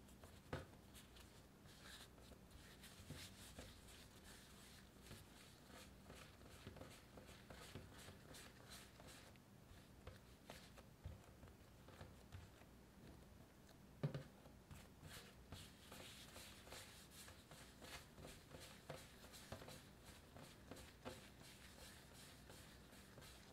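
Balls of bread dough being rounded by hand on a countertop: faint, quick scuffing and rubbing of palm and dough against the surface, with a soft knock about half a second in and a sharper one about halfway through.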